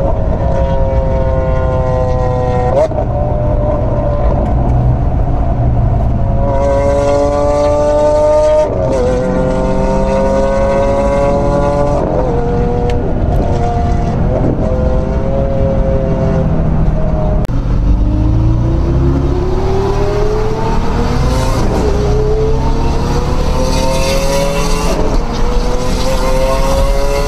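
Sports car engine accelerating hard through the gears: its note climbs and drops sharply at each upshift, several times, with one long climb in the second half. A steady road rumble runs underneath.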